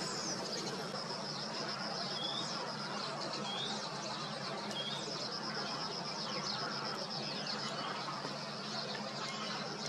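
Marshland birdsong: a continuous high, finely pulsing trill, with a short rising chirp repeated about once every second or so and scattered quick falling notes from small birds, over a steady low hum.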